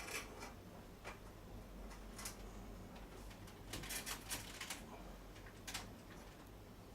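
Faint, scattered clicks and taps of ethernet cables and their plastic plugs being handled, with a quick run of several clicks about four seconds in.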